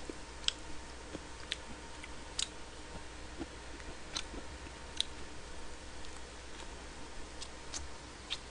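Quiet eating of a salad lunchbox: soft chewing with about eight sharp, irregular clicks of a metal fork against the plastic tray, over a faint steady hum.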